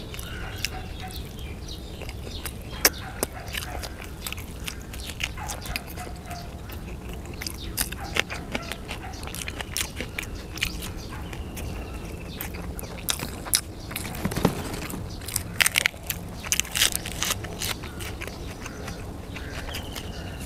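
Close-up wet chewing and lip-smacking of a man eating Thai sai krok sausage, with many short smacks and clicks that come thicker and louder in the last third.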